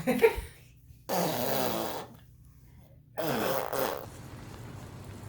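Baby farting twice, each a raspy burst lasting just under a second.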